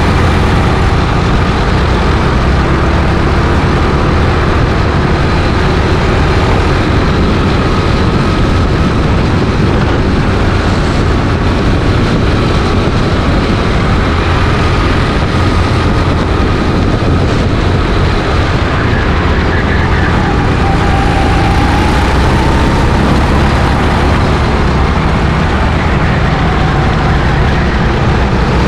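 Go-kart engine running at racing speed, heard onboard under a steady rush of wind noise on the microphone.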